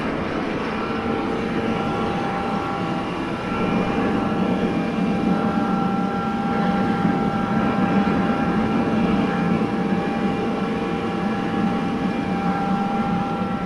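Combine harvester running steadily while harvesting: a loud, even machine drone with several steady whining tones over it.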